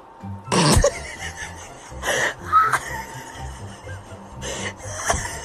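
Background music under a few short bursts of a person's laughter.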